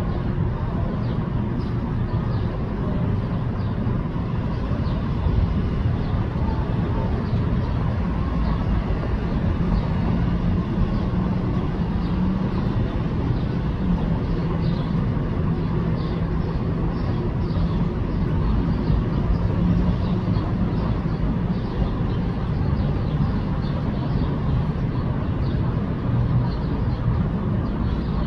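Steady low rumble of engines and traffic, with a faint wavering engine hum.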